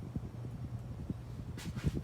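Antique Westinghouse Baby Sidewinder ceiling fan coasting down after being switched off, its heavy spinning housing and blades giving a rapid run of soft low thumps over a faint steady hum. A brief rustle comes near the end.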